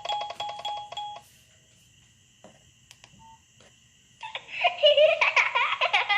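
Ringtones playing through a Nokia 6085's built-in speaker: one synthesized tune ends on a fast-repeated note about a second in, followed by near quiet with a few faint clicks. About four seconds in, a new busy, warbling ringtone starts.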